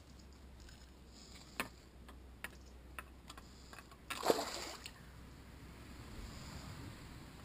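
A short splash in the river water about four seconds in, the loudest sound here, fading within about half a second. A few small sharp clicks come before it.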